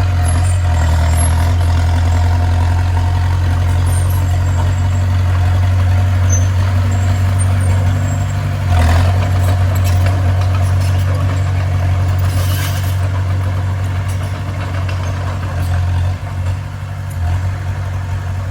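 Heavy diesel engine of earthmoving machinery running steadily with a low hum, with a single clank about halfway through and a brief hiss a few seconds later.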